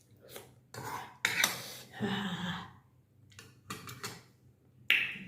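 Eating utensils clinking and scraping against a bowl of thukpa, in several short bursts, with a brief voiced eating sound about two seconds in.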